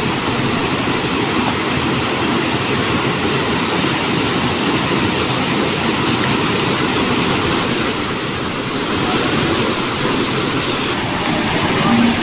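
A stream in spate, swollen by heavy rain, sending muddy floodwater rushing over and along a road in a loud, steady rush of water.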